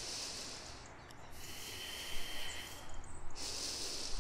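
A woman breathing slowly and audibly: three long, hissing breaths, each about a second long, with short pauses between them.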